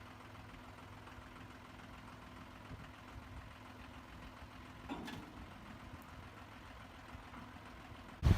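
A faint, steady low hum, with a short clunk about five seconds in and a sharp, loud knock near the end.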